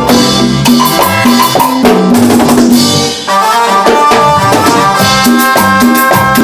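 Music intro driven by drum kit and percussion in a steady beat. A brief break comes about three seconds in, after which held pitched notes sound over the drums.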